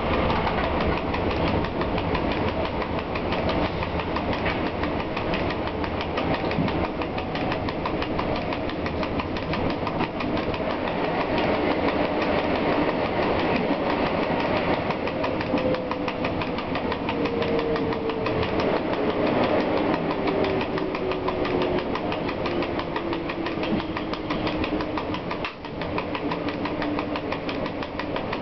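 Running noise heard in the cab of a Polish ET22 electric locomotive under way: a steady rumble and rattle of wheels on the track. Over the second half, a whine slowly falls in pitch.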